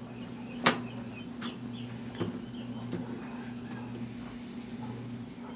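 Steady low electrical hum, with a single sharp click a little under a second in and a few fainter ticks after it.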